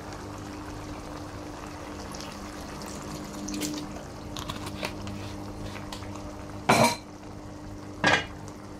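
Chicken feet simmering in adobo sauce of soy sauce and vinegar in an open pan, a steady bubbling with a low hum under it. Two sharp clatters of cookware against the pan come about seven and eight seconds in.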